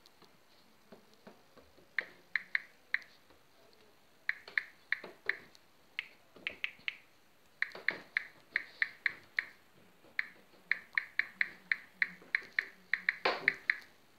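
Irregular runs of short, sharp clicks, several a second, starting about two seconds in and coming thickest near the end.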